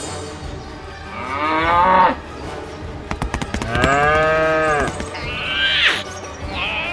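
Cattle mooing: several drawn-out calls, the longest about four seconds in, with a quick run of clicks just before it.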